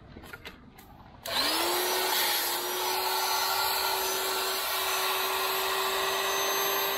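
A small electric motor switches on about a second in, its pitch rising quickly as it spins up and then holding steady, with a loud rushing hiss.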